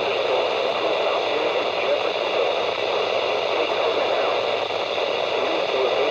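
Steady hiss of radio static, like a poorly received radio signal.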